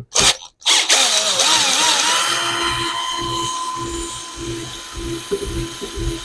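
Small electric drill starting up about a second in and running steadily, drilling a hole through the body of a watchmaker's loupe. Its whine wavers at first, then holds a steady pitch.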